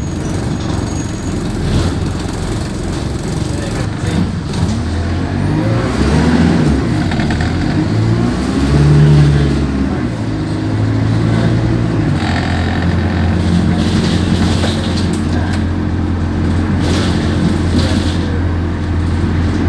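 Alexander Dennis Enviro200 bus engine running under way. Its note rises and falls in pitch through the middle, then settles to a steady drone for the rest.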